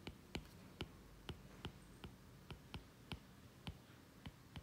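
Faint, short clicks of a stylus tip tapping a tablet's glass screen while handwriting, about three a second and unevenly spaced.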